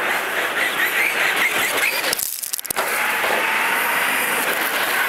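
Radio-controlled car driving over loose gravel, a dense gritty noise from its tyres and motor that cuts out briefly about two seconds in.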